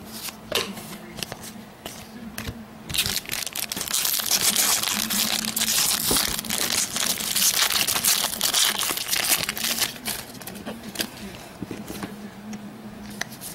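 Foil wrapper of a trading-card pack being torn open and crinkled off the cards, a dense high crinkling for about seven seconds in the middle. Light clicks and taps come before and after it.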